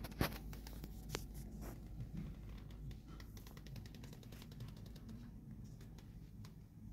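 Kittens' claws ticking and scratching on a tile floor as they play, with a few sharper taps in the first two seconds and a low steady hum underneath.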